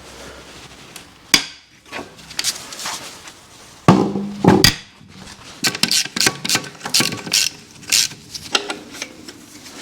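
Metal clanks and clinks of bolts, tools and suspension parts being handled on a car's rear subframe during disassembly. The knocks are irregular, with a loud strike about a second in, a loud cluster around four seconds, and a quick run of lighter clinks after that.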